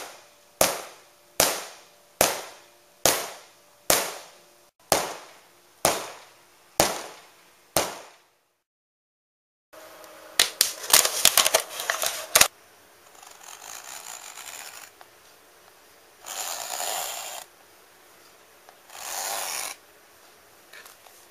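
A hammer strikes the inflated PVC tube of a Saturn inflatable boat about ten times, roughly once a second, each blow ringing and dying away. Then comes a quick cluster of sharp cracking clicks as a knife is put to a thin plastic bottle, followed by three scraping strokes as the knife is drawn across PVC boat fabric.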